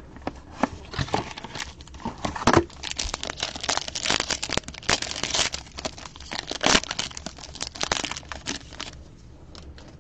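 Plastic wrapping crinkling and tearing, with many small crackles, as a sealed trading-card box is unwrapped and opened. It dies down near the end.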